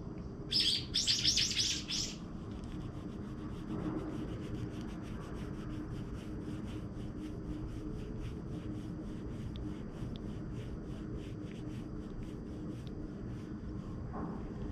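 Fingers rubbing and scratching a cat's fur right against the microphone. There is a loud rustle about half a second in, then a steady rhythmic scratching at about four strokes a second.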